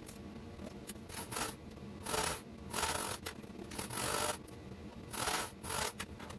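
Sewing materials being handled: about five short rustling, rubbing strokes in the second half.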